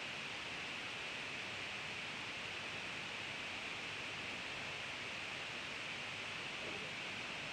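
Steady, even hiss of room tone and recording noise, with no distinct sound events.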